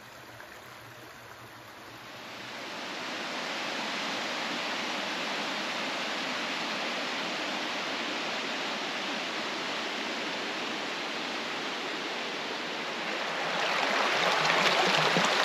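Rushing water of a stream, a steady hiss that swells about two seconds in and grows louder again near the end.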